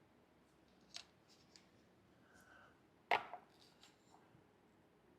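Plastic foam cannon parts being handled and fitted together: a light click about a second in, then a sharper knock about three seconds in followed by a few smaller clicks.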